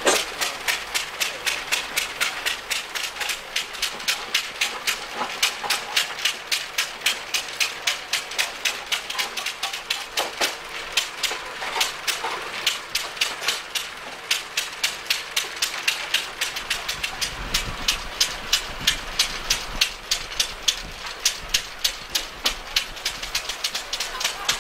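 Steady, even mechanical knocking from a running engine, about three sharp beats a second.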